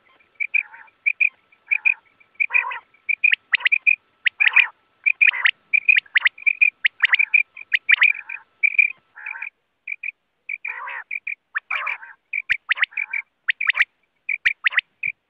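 Common quail calling: a fast, unbroken string of short, sharp call notes mixed with harsher chattering calls.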